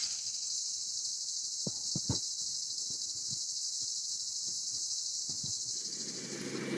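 Steady, high-pitched chirring of insects, with a few faint ticks about two seconds in. A low, steady engine hum comes in near the end.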